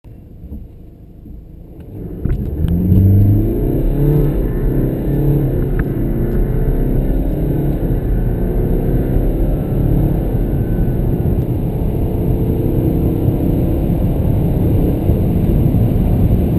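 BMW turbocharged four-cylinder engine accelerating hard from a standstill, heard from inside the cabin: the engine note climbs in pitch and drops back at each upshift. It starts quietly and gets much louder about two seconds in, as full throttle is applied.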